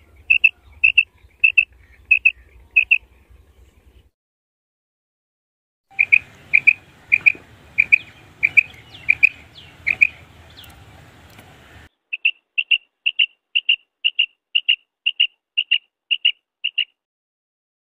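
Female common quail calling: short, high, clipped notes repeated about twice a second, the call used as a lure in quail hunting. The calls come in three runs from different birds, with a pause of about two seconds between the first and second runs. The middle run has a faint outdoor hiss and a few fainter, higher chirps behind it.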